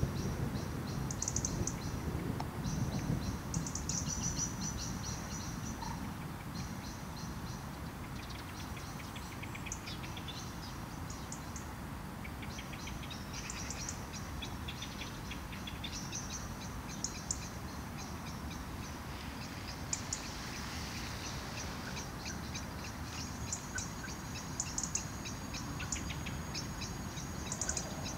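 Songbirds chirping and trilling over and over in short high-pitched calls, over a steady low rumble that is loudest in the first few seconds. A thin steady high tone joins near the end.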